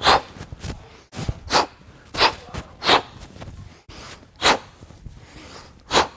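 A man's short, forceful breaths, about six sharp bursts at uneven intervals, as he works through mace back swings.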